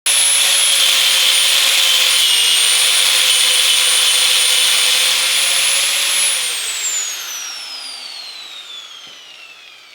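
Electric grinder running at full speed with a steady high whine, then switched off about six seconds in and winding down, its pitch falling steadily as it coasts to a stop.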